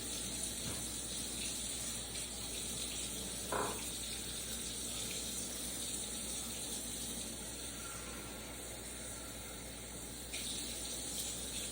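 Water running steadily from a kitchen tap, cutting off just after the end.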